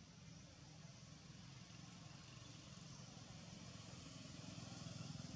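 Near silence: faint, steady background noise with a low hum and no distinct event.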